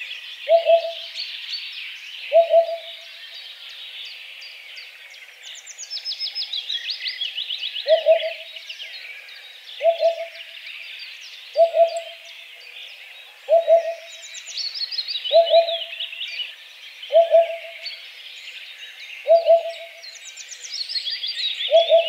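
Eurasian hoopoe giving its low, soft hooting 'oop-oop' phrases. Two come early, then after a pause of a few seconds they repeat about every two seconds. Behind it other small birds keep up high trills and chirps.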